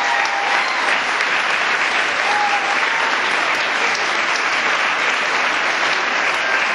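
Audience applauding steadily at the end of a magic trick.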